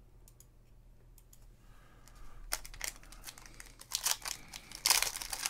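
Foil wrapper of a football trading-card pack crinkling and tearing as it is handled and torn open. Quiet for about the first two seconds, then the crackling builds and is loudest near the end.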